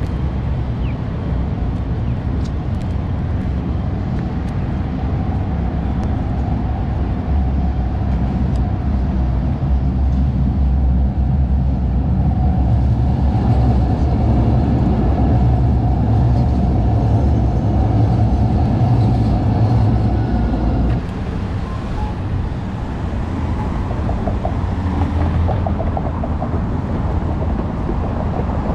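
City street traffic close by. A vehicle's low rumble with a steady hum swells and holds for about fifteen seconds, then drops off abruptly about three-quarters of the way through.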